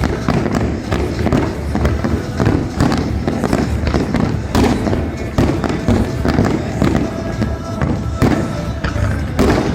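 Fireworks bursting in quick succession, many bangs one after another, with music playing alongside.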